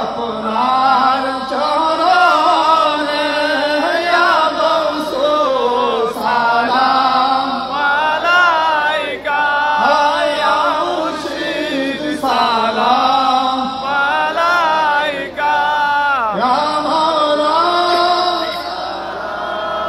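Men chanting a slow devotional salutation to the Prophet (qiyam salam) through microphones, with long, ornamented melodic lines that waver and glide in pitch and brief breaths between phrases.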